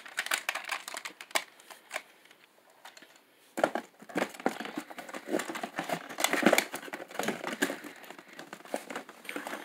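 Plastic and cardboard toy packaging crinkling and clattering as a plastic Buzz Lightyear action figure is handled and pushed into its window box. It goes quieter for a moment about two to three seconds in, then picks up again with busier crinkling.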